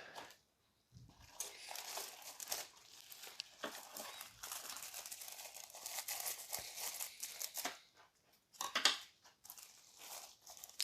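Plastic packaging of model-kit parts crinkling as it is handled: a light, continuous rustle for several seconds, with a few louder crinkles near the end.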